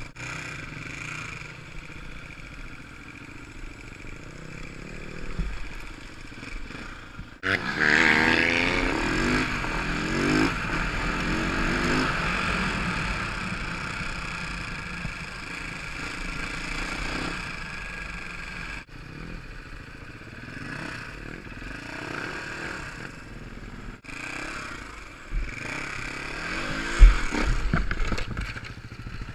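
Enduro motorcycle's single-cylinder four-stroke engine heard from the rider's helmet, with loose stones clattering and scraping under the wheels. About a quarter of the way in it revs up hard and holds high revs for several seconds before easing off. Near the end comes one sharp, loud knock.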